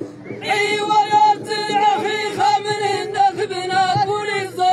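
Group of men singing a held chant together, a sung refrain of Amazigh poetry, the voices coming in about half a second in and sustaining long notes.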